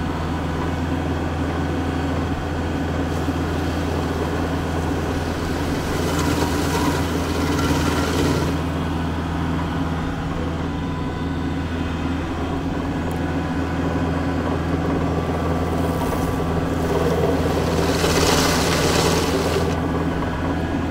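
Tractor engine running steadily, driving a PTO-powered Woodland Mills WG24 stump grinder. The cutting wheel grinds into a stump in two louder, harsher spells, about six seconds in and again from about sixteen seconds.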